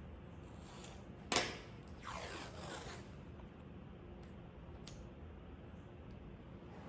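Washi masking tape being pulled off its roll: a sharp snap, then a rasping tear that falls in pitch over about a second, and a small tick a little later.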